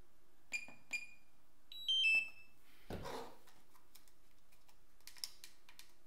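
DJI RC-N1 remote controller powering off: two short beeps as its power button is pressed, then a falling three-note chime. A soft thump about three seconds in is followed by faint clicks of handling.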